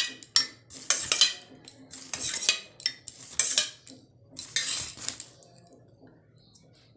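Spoon clinking and scraping against a stainless-steel bowl, an irregular run of sharp clinks and scrapes for about five seconds while curd is added to semolina for idli batter.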